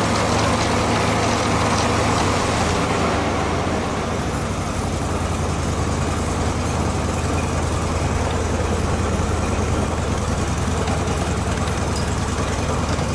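Hustler Super Z zero-turn mower running steadily with its deck pulleys and blades turning, the engine tone easing slightly about three seconds in. No bearing noise from the freshly replaced spindle and idler bearings: the deck runs smooth.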